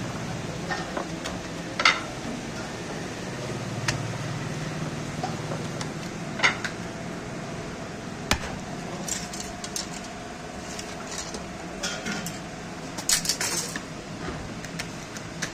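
Scattered sharp knocks and metal clinks over a steady background hum at a naan tandoor: dough being handled and slapped, with metal tools and dishes clinking. A quick run of clinks comes near the end.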